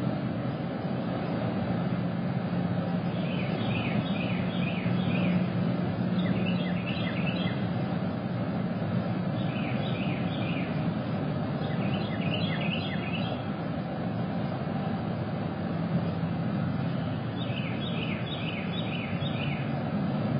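Steady low mechanical hum, with birds calling in short runs of quick high chirps every few seconds.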